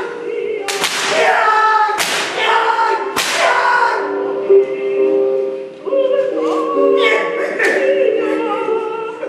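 Three sharp whip cracks, a little over a second apart, over several voices singing long held notes together; the singing goes on, changing notes, after the cracks stop.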